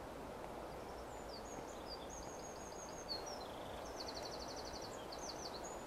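A small songbird singing: a run of varied high chirps and whistled slides, with a fast even trill in the middle, over a steady outdoor hiss.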